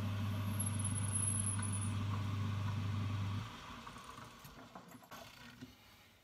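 1953 Boxford metal lathe running with a steady electric-motor hum, switched off about three and a half seconds in, then coasting quietly to a stop.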